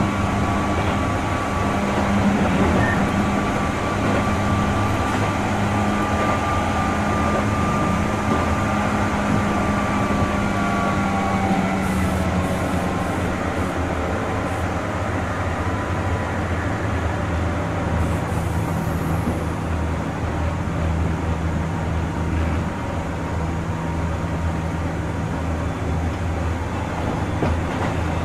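Keihan 2600 series 0-subseries electric train running: a steady rumble of wheels on rail under a hum, whose higher tones fade out about eleven seconds in.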